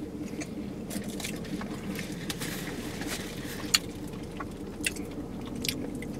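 Sipping a fountain soda through a straw and swallowing, with small wet mouth clicks and a sharp click a little past halfway, over a steady low hum in the car cabin.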